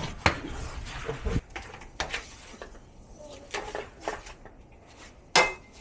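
Scattered short knocks and clicks, several seconds apart, the sharpest about five and a half seconds in.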